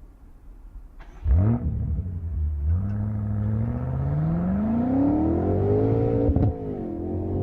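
2018 BMW M5 F90's twin-turbo V8 starts with a short flare of revs about a second in. It then pulls with its pitch climbing steadily under acceleration, breaks sharply for an upshift near the end, and climbs again.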